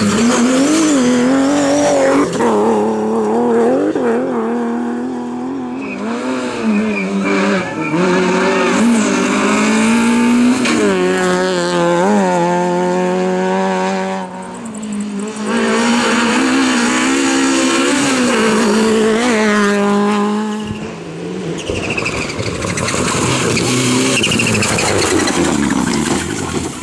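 Rally cars driven hard through a tight bend one after another, among them a BMW E30, a Citroën Saxo and a Mitsubishi Lancer Evolution. The engines rev up and down through gear changes, with tyre squeal. Near the end there is a rougher rushing noise as the Lancer runs off the road through dry grass and dirt.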